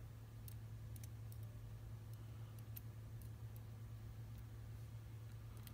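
A few faint, scattered light clicks from small lock parts and tools being handled, over a steady low hum.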